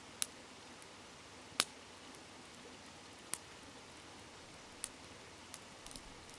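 Wood campfire crackling: about half a dozen sharp, irregularly spaced pops over a faint steady rushing of a flowing river.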